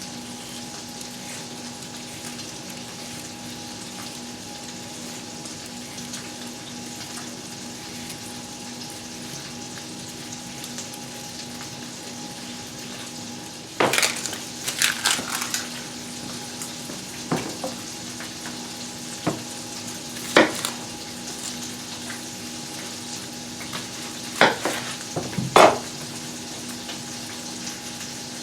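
Chicken pieces sizzling as they brown in butter in a frying pan, a steady hiss with a low hum underneath. About halfway through, sharp clicks, knocks and scrapes of kitchen utensils come in scattered bursts, the loudest near the end.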